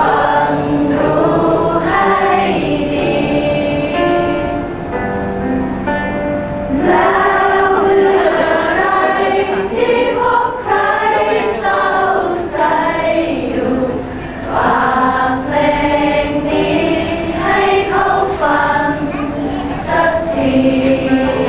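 A group of people singing a song together, holding long notes.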